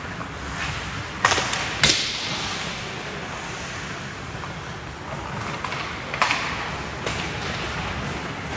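Ice hockey play on an indoor rink: a steady scraping hiss of skates on ice, broken by sharp cracks of stick, puck and boards. Two cracks come close together just over a second in, the second the loudest, and another about six seconds in.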